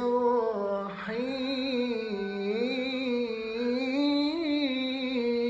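A solo voice chanting Quran recitation in melodic tajwīd style, drawing out the word "ghafūr" in one long unbroken note that winds slowly up and down in ornamented turns.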